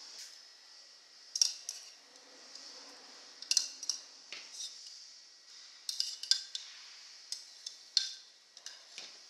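Metal kitchen utensils clinking and tapping: about a dozen sharp clicks, mostly in small clusters of two or three, over a faint steady hiss.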